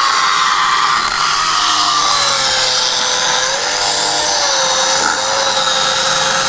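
A power saw runs steadily while cutting crosswise slits down into an oak log end, its motor pitch wavering slightly under load.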